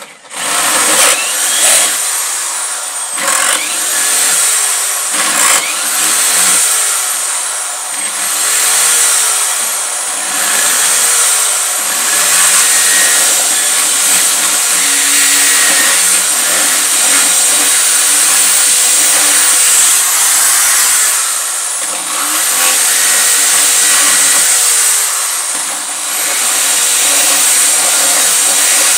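Electric drill boring holes into a wooden plank: a loud, high motor whine that sags in pitch each time the bit bites into the wood and climbs back as the load eases, over and over about every two seconds.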